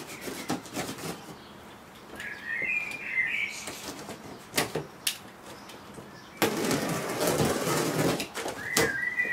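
Packing tape being worked loose and ripped off the top of a large cardboard box: a few sharp clicks early, then a long noisy rip about two-thirds of the way in. A bird chirps in the background twice.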